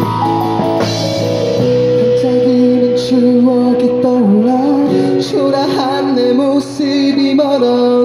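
Live band music: guitars, keyboard and drums playing a passage between sung lines of a rock-pop song, with a melody line that bends and wavers in pitch over sustained chords and a few cymbal hits.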